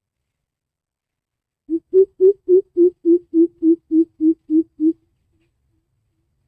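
Greater coucal giving its deep hooting call: a run of about a dozen low, evenly spaced hoots, roughly three or four a second, that stops suddenly.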